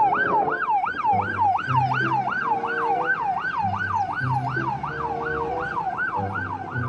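Police car siren in yelp mode: a fast, rising-and-falling electronic wail, about three and a half sweeps a second, unbroken throughout.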